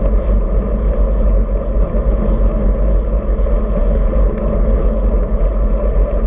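Steady wind rumble buffeting the microphone of a handlebar-mounted camera on a road bicycle in motion, with no let-up.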